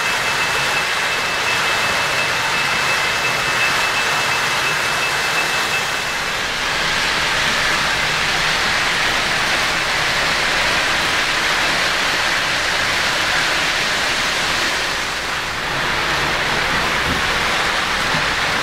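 3-rail O-scale model freight train rolling past, a steady rolling noise of metal wheels on the track. A thin, steady high whine sounds over it for about the first six seconds.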